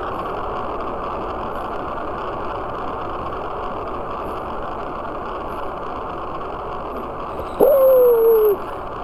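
A beagle gives one long bay near the end, about a second long, starting high and sliding slowly down in pitch. It is very loud and close because the camera is strapped to its back. A steady rushing noise runs underneath.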